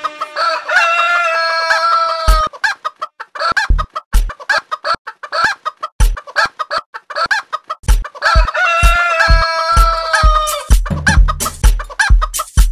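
A rooster crows twice, each crow a long call of about two seconds, over a drum beat with deep kick thuds and sharp clicks.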